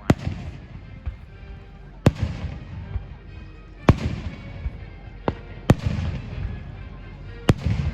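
Aerial fireworks shells bursting: six sharp bangs about every one to two seconds, each trailing off in a low rumble.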